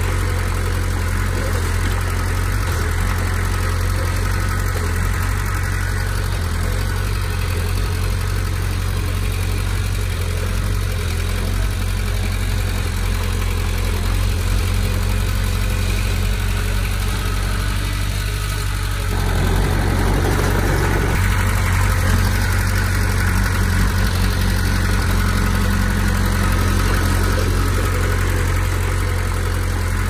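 Komatsu D20P bulldozer's diesel engine running steadily with a deep, even hum. About two-thirds of the way in, it grows a little louder.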